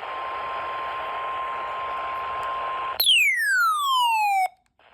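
A steady single-pitch weather-radio warning alarm tone (about 1050 Hz) over radio static, cutting off about three seconds in. It is followed by a louder electronic tone sweeping down in pitch for about a second and a half, which stops abruptly.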